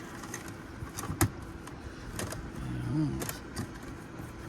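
Irregular clicks and scrapes of a plastic drain-cleaning snake being worked up inside an RV dryer vent to dig out lint, with a short voice sound about three seconds in.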